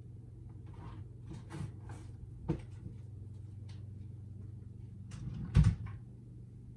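Objects being handled and moved around on a cluttered dresser: light rustles and clicks, a sharp knock about two and a half seconds in, and a louder, heavier thump about five and a half seconds in, like a drawer or cupboard door shutting.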